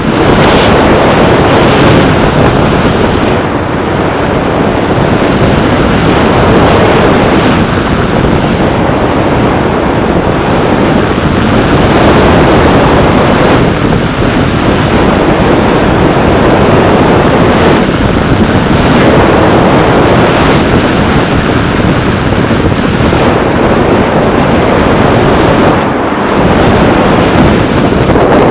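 Wind rushing over the microphone of a camera on a paraglider in flight: a loud, steady rush of air that swells and eases a little with the airflow.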